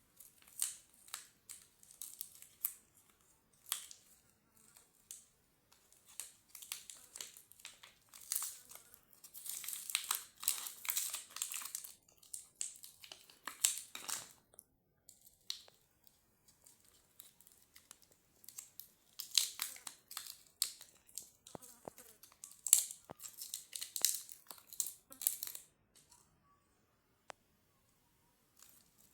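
Crinkly plastic candy wrappers being handled and torn open, in irregular bursts of crackling and rustling with short pauses. It stops a few seconds before the end.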